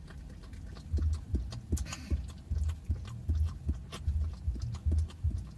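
Dog licking whipped cream from a small cup held in a hand: a steady rhythm of wet laps and soft knocks, about three a second, starting about a second in.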